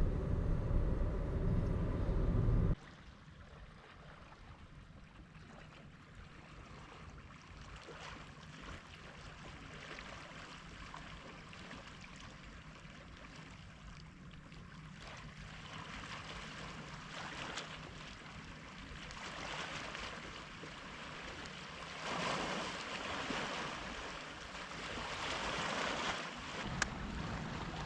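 A loud low rumble that cuts off suddenly about three seconds in, then the steady wash of sea waves on the shore, swelling louder a couple of times near the end.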